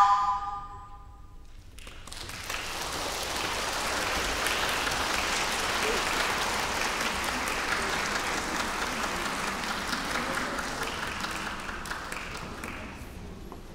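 Audience applauding in a concert hall. A held chord cuts off at the very start, the applause begins about two seconds in, holds steady, then fades near the end.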